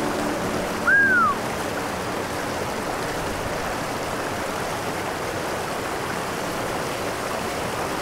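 River water rushing steadily over its bed. About a second in, one short high note sounds over it, falling in pitch.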